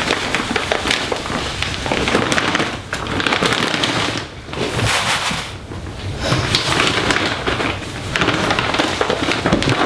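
Cat litter granules pouring from a bag into a plastic litter box, a dense crackling rush that breaks off briefly twice around the middle before pouring resumes.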